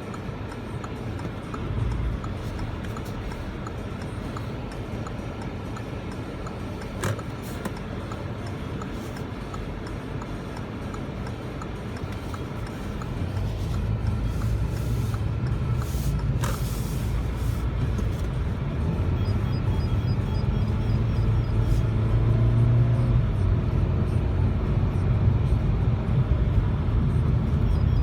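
Vehicle engine and road noise: a steady low rumble that grows louder from about halfway through.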